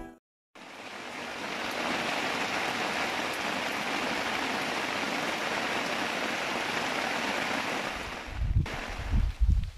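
Heavy rain falling on a campsite and tent, a steady, even hiss that fades in and cuts off suddenly near the end. Low thumps and rumbles come in over the last second or so.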